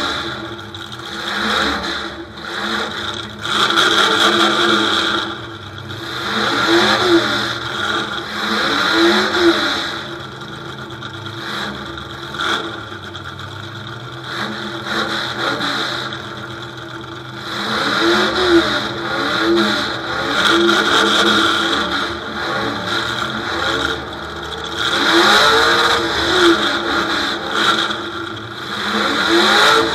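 Demolition derby truck's engine, heard from inside the stripped cab, revving up and falling back again and again in waves a few seconds apart, with a few brief knocks.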